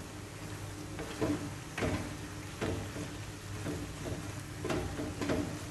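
Wooden spoon stirring chopped raw pork and pork intestines in a nonstick frying pan, a short scrape with each of several irregular strokes, over a steady low hum.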